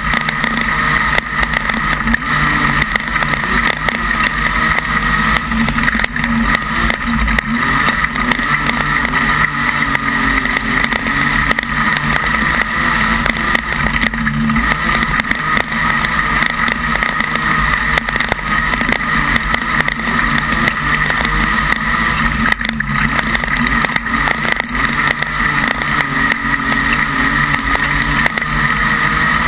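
Modified production speedway car's engine running hard at racing revs, heard from inside the cockpit: a loud, steady din of engine and wind with many small clicks and knocks.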